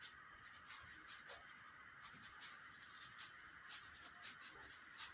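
Faint, light scratching and rustling ticks, several a second and irregular, over a steady hiss.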